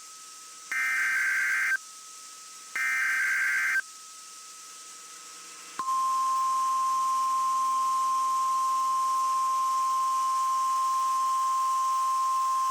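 Emergency Alert System SAME header: two one-second bursts of warbling digital data tones, about a second apart. About two seconds later the NOAA Weather Radio 1050 Hz warning alarm starts, one steady high-pitched tone that holds. Together they open a Required Weekly Test broadcast.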